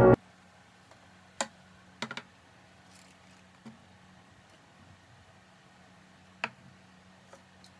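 Light clicks and knocks of plastic desk items being set down on a desk surface: one click at about a second and a half, a quick cluster of three just after two seconds, and a sharper single click past six seconds, over a faint steady low hum.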